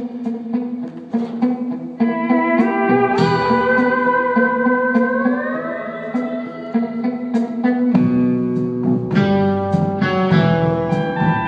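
Live instrumental band music led by pedal steel guitar, whose held chords slide upward in pitch, over electric guitar and light percussion ticks. About eight seconds in, lower bass notes come in and the band fills out.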